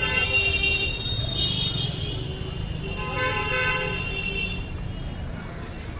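Vehicle horns honking in street traffic: a long honk at the start, briefly overlapped by a higher-pitched horn, then another long honk about three seconds in, over a steady low traffic rumble.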